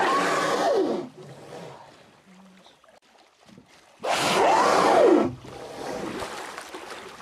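Humpback whale blowing twice, about four seconds apart: each breath is a loud, roughly one-second whoosh with a tone that rises and falls inside it.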